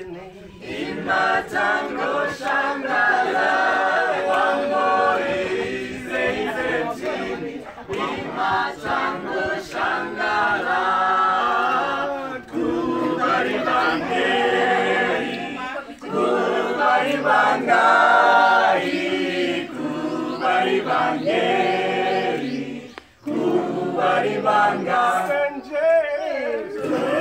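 A group of people singing together without instruments, phrase after phrase with a few brief pauses.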